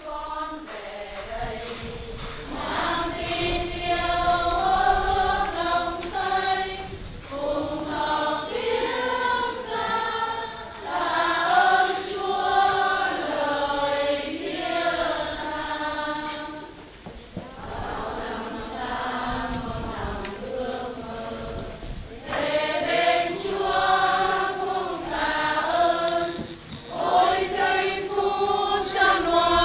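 Choir singing a hymn at Mass, phrase by phrase with short pauses between.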